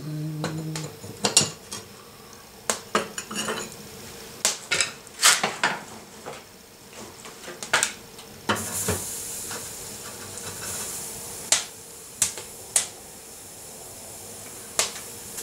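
Cast iron lid of a wood-burning cookstove worked off with a lid lifter and a cast iron skillet set down over the open fire: a string of sharp metal clanks and scrapes.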